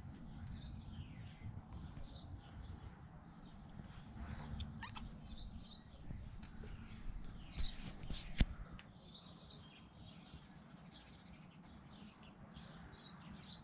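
Birds chirping faintly in short high bursts, about one every second or so, over a low steady background rumble; a single sharp click about eight seconds in.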